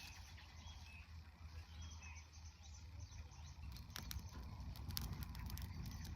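Faint outdoor ambience: a low rumble with a few faint bird chirps, then from about halfway in a scatter of small sharp clicks and crackles.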